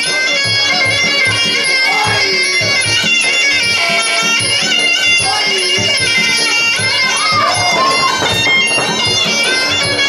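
Traditional Muay Thai fight music (sarama): a reedy, oboe-like pi java melody with wavering, bending notes over a steady beat of hand drums.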